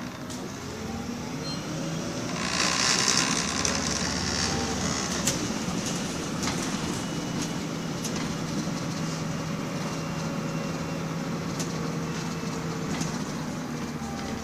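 Cabin sound of a MAN 18.240 single-deck bus on the move: its six-cylinder diesel engine running, its pitch slowly rising and falling as the bus pulls away and changes speed, with scattered clicks and rattles. About two seconds in, a loud hiss lasts for two to three seconds.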